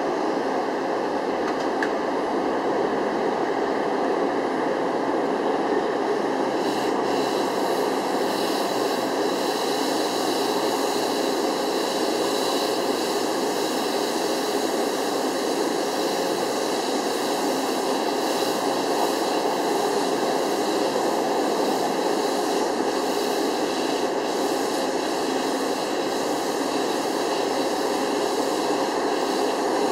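Metro-North M8 electric multiple unit standing at a station platform, its onboard equipment giving off a steady whirring hum.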